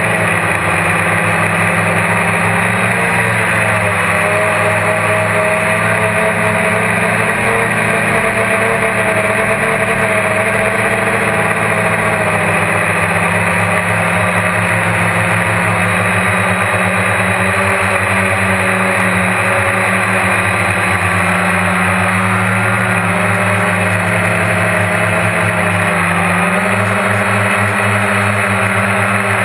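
GAUI QuadX quadcopter's electric motors and propellers whirring loudly and steadily, heard from on board the aircraft, the pitch shifting a little as the motors speed up and slow down in flight.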